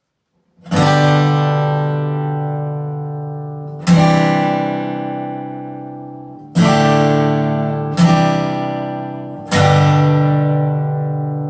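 Bentivolio 1501 all-solid acoustic guitar, Indian rosewood back and sides: five chords strummed one at a time, each left to ring and slowly fade before the next.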